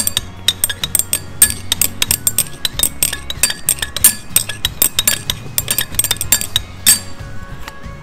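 Glass stirring rod clinking rapidly against the inside of a glass beaker as a solution is stirred: many quick, sharp taps that stop about seven seconds in.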